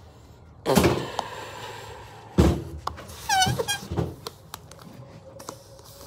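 A white disposable glove being blown up by mouth: a couple of hard puffs of breath into it, then a quick run of short squeaky chirps about three seconds in as it stretches.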